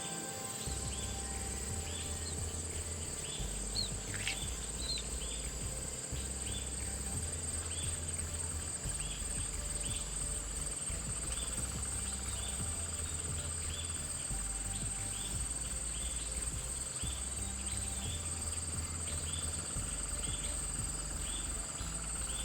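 Insects trilling steadily in one continuous high tone, with a short chirp repeating about twice a second, over background music carried by a slow, low bass line.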